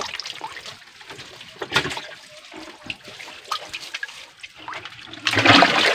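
Hands and bare feet sloshing and splashing in shallow, muddy stream water while groping in the mud for trapped fish, with intermittent splashes and a louder splash near the end.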